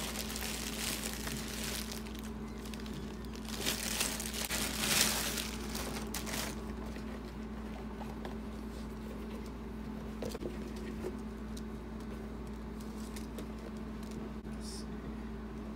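A clear plastic bag crinkling and rustling as a rubber clown mask is pulled out of it, in two loud spells over the first six seconds or so. After that come quieter handling noises over a steady low hum.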